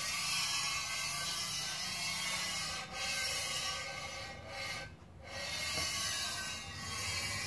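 Diamond-impregnated cast iron lapping plate rubbed back and forth over a granite surface plate: a steady gritty rasping that breaks off briefly a few times, longest about five seconds in. It is a light rub that marks the granite's high spots.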